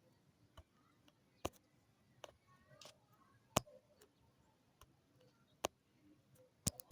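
Faint, sharp clicks and taps of small plastic lock parts being handled, about eight at irregular intervals, as the broken gear piece of a Nissan Sentra door lock actuator is taken out and set aside.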